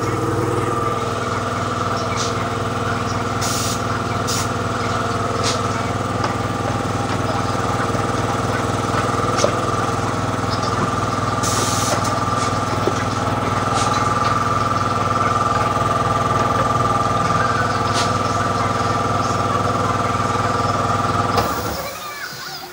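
Cabinet-type shop air compressor running with a steady hum, then shutting off abruptly about 21 seconds in. A few short hisses of air come through while it runs.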